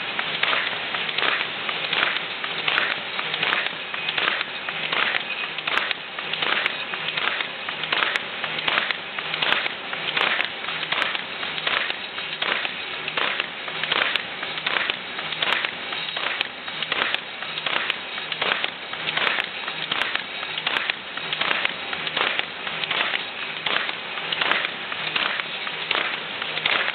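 MBO B26 paper folder feeding a reconditioned MBO Z2 knife folding unit, running on a test: a steady mechanical clatter with a regular beat of a little under two strokes a second.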